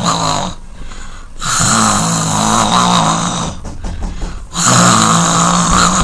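A person snoring loudly: three long snoring breaths of about two seconds each, with short quieter pauses between them.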